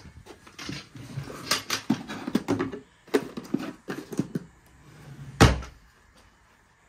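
Rummaging in a wooden wardrobe drawer: a quick run of clicks and knocks as items are moved about, then a single loud thump about five seconds in.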